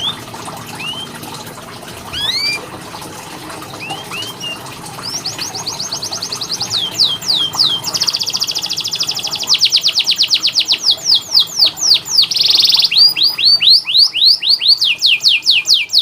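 Domestic canary singing: a few scattered chirps at first, then from about five seconds in a loud, fast song of rapidly repeated downward-sweeping notes and long rapid trills (rolls), growing louder toward the end.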